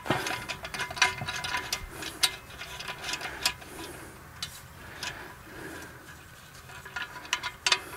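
Scattered clicks and light taps of garden hose reel parts being handled and fitted together while the jumper-hose strap is put on.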